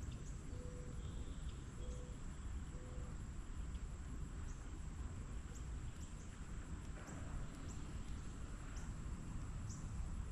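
Insects buzzing with a steady high-pitched tone over a low rumble. Three short low notes about a second apart sound in the first few seconds, and a few faint ticks are scattered through.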